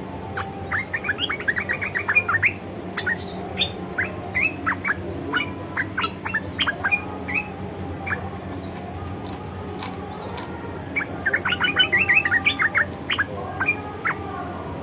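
Red-eyed bulbul chattering: quick runs of short, sharp, rising chirps in three bouts, near the start, around the middle and near the end.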